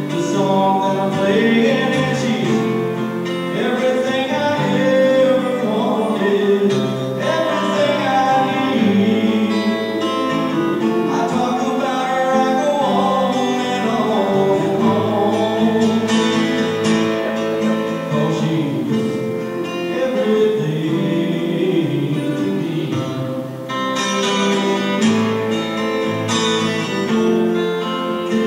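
A man singing a slow country-style song, accompanying himself on an amplified acoustic-electric guitar.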